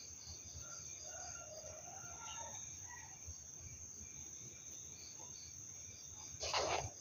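Crickets chirping in a steady, pulsing high trill, with faint wavering low yowls from cats squaring off in a tree in the first half. A short rough burst of noise comes near the end.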